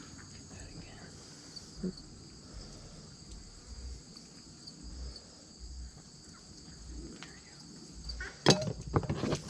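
Insects chirping steadily in a high, even drone. A few loud, sudden knocks come near the end.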